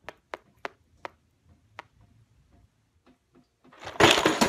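A Monopoly token tapped along the board's spaces: five sharp clicks in the first two seconds, unevenly spaced. Near the end, a short loud rushing burst of noise.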